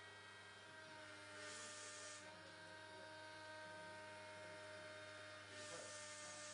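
Faint steady machine hum from a running cider press, with a stretch of hiss about a second and a half in and again near the end.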